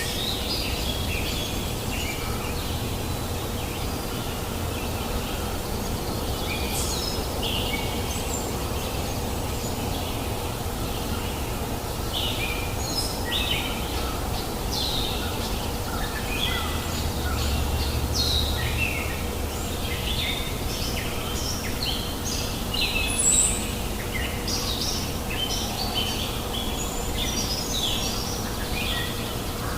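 Many short bird chirps and calls over the steady rushing of a river, the chirps growing busier about halfway through.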